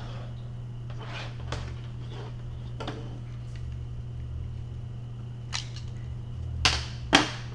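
Small plastic network parts, a keystone jack with its dust cover and a biscuit box, being handled, with light scattered rustles and two sharp plastic clicks near the end, over a steady electrical hum.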